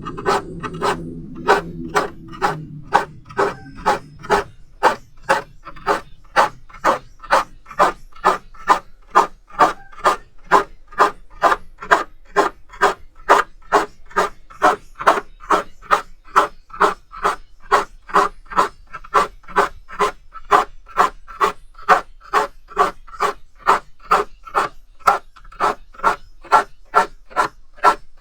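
Hand file sharpening the teeth of a crosscut handsaw: steady, even rasping strokes, a little over two a second, kept up without a pause.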